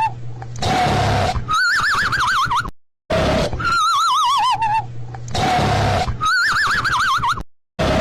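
Cartoon snoring sound effect: a rasping snore on the in-breath followed by a warbling whistle on the out-breath, three times over. There are two brief gaps of silence between cycles.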